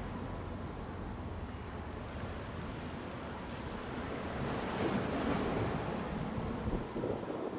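Wind blowing over the microphone, rumbling, over the wash of choppy sea waves; the rush swells briefly about halfway through.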